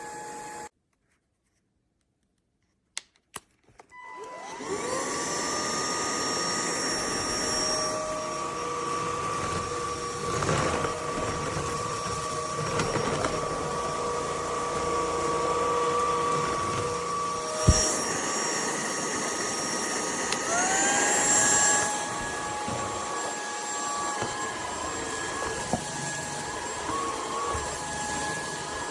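Cordless stick vacuum, the UNINELL UV3, switching on after two clicks and spinning up to a steady high whine. Its pitch steps up about twenty seconds in, as when it changes to a higher power setting.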